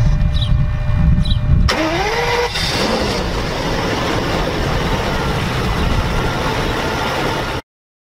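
Car engine running with a faint chirp about once a second, then a short rising whine as an engine cranks and starts, running steadily until the sound cuts off abruptly near the end.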